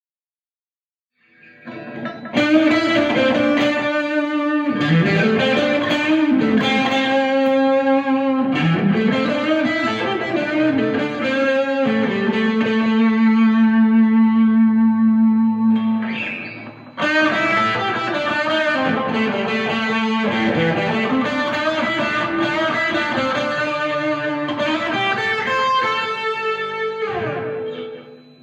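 Harley Benton JA-60CC offset electric guitar played through an amp, starting about a second and a half in: a melodic lead line with bent notes, one long held note in the middle, and falling pitch glides near the end.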